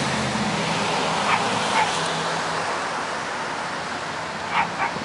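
Small dog yapping: two short high yaps a little over a second in and two more near the end, over a steady background hum.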